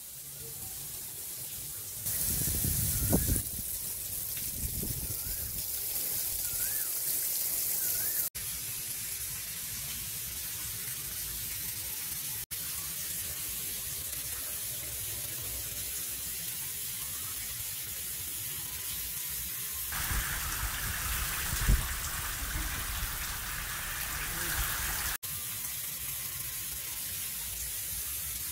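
Water from a homemade PVC-pipe rain shower falling in many thin streams and splashing onto the water in a tiled tank, a steady hiss-like patter. Its character changes abruptly three times, and low rumbling bumps come about 2 to 3 seconds in and again near the end.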